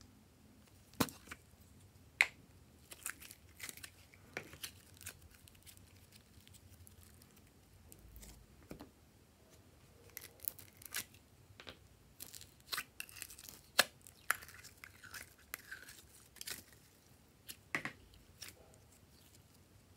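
Scattered sharp clicks and crinkly crackles of a small plastic slime container being handled and opened, and glittery slime being pulled out of it. The loudest clicks come about a second in, at about two seconds and near fourteen seconds.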